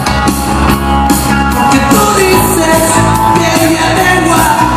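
Loud music with a singing voice, played over a dance sound system.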